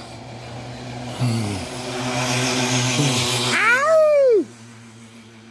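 Street traffic: a vehicle engine hums steadily while a swelling hiss of vehicle noise builds and then cuts off suddenly about four and a half seconds in. Just before it stops there is a short wail that rises and then falls in pitch.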